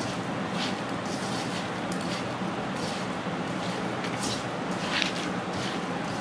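Grated carrot and coconut being tossed and mixed by hand in a non-stick pan: moist rustling squishes, with a brushing stroke about once a second.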